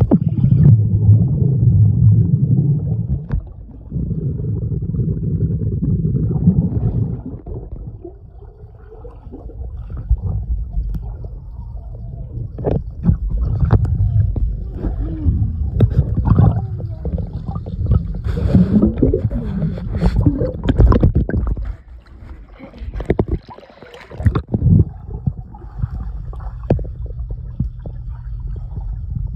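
Muffled underwater sound of a swimming pool heard through a submerged camera: a low churning rumble of moving water with gurgling bubbles and scattered knocks, loudest over the first seven seconds.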